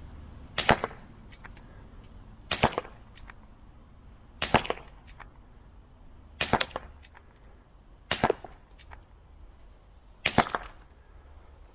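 Air revolver, CO2-powered, firing .177 homemade darts: six sharp shots about two seconds apart, each a quick double crack.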